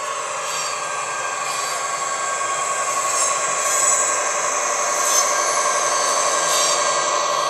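Piko model of an ÖBB class 2016 'Hercules' diesel locomotive, its ESU LokSound HiFi decoder playing a diesel engine running sound through a passive radiator speaker, with a steady whine over the engine note. It gets louder as the locomotive approaches and passes, along with the model's wheels running on the track.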